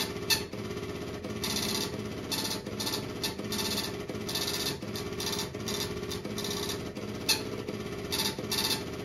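Onboard computer's ticket printer printing a delivery ticket in short, buzzing bursts, each under half a second and coming about once a second, line by line.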